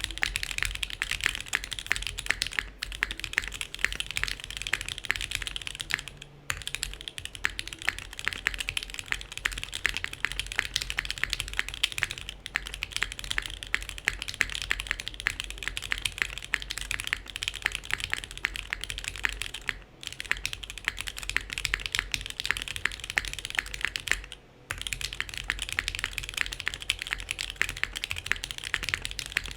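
Continuous typing on a SingaKBD Kohaku mechanical keyboard with Alpaca linear switches, a polycarbonate plate and GMK Wob keycaps: a dense, rapid run of key clicks, with brief pauses about six, twenty and twenty-four seconds in.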